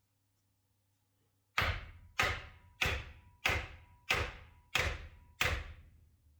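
Seven heavy thuds, evenly spaced at about one and a half a second, each sharp at the start and dying away quickly.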